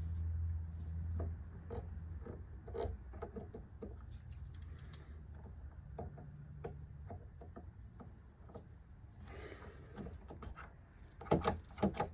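Light clicks, taps and scraping of hand tools and metal parts being handled at the workbench as the new retaining clip is seated on a Tecumseh electric starter's gear shaft, with a few louder knocks near the end.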